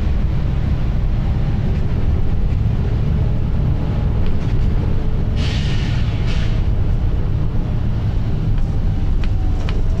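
Volvo B9TL double-decker bus's nine-litre six-cylinder diesel engine running under way, a loud steady rumble heard from inside the saloon. About five and a half seconds in, a burst of compressed-air hiss from the bus's air system lasts about a second.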